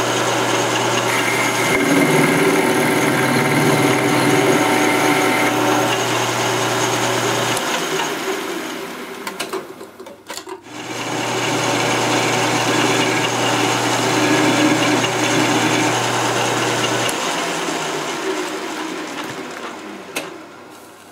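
Metal lathe running, its cutter taking light finishing passes on a welded-on sleeve over a rifle barrel: a steady motor hum with a hissing cut on top. The sound drops out briefly about halfway, picks up again for a second pass, and fades away near the end.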